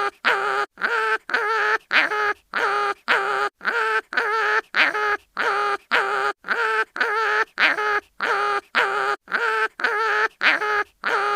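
Cartoon animal pain-cry sound effect: a short wavering yelp repeated in a fast, even loop, about two or three cries a second, some starting with a quick upward slide in pitch.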